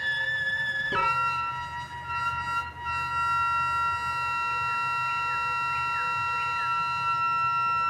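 Modular synthesizer holding a sustained drone of several steady tones, which changes to a new chord about a second in and then holds. Short faint falling blips repeat through the drone.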